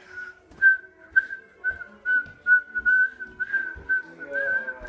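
A person whistling a run of short notes at about the same high pitch, each wavering slightly, with faint dull thumps underneath.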